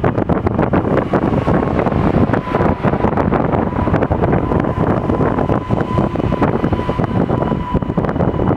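Strong wind buffeting the microphone over a PESA Elf 2 (EN98) electric multiple unit going past, with a steady whine under the wind while it passes.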